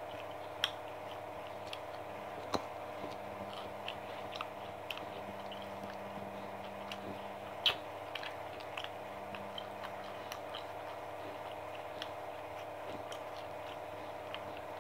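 Eating fried chicken by hand: scattered crackles and clicks of crispy skin being pulled apart and chewed, with a few louder snaps, over a steady hum.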